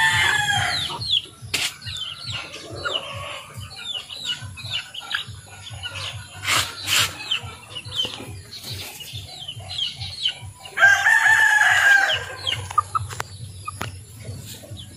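Backyard chickens calling: a rooster crows in one long call about eleven seconds in, among clucking and many short chirps, with a few sharp clicks around the middle.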